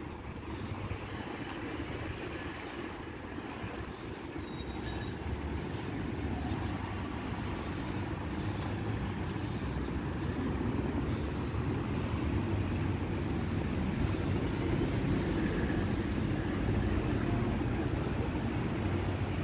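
Steady rumble of nearby city road traffic, with buses and other heavy vehicles, growing slowly louder.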